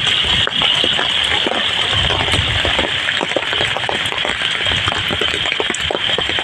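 Heavy rain pouring steadily: a dense hiss of countless drops striking standing water and wet ground.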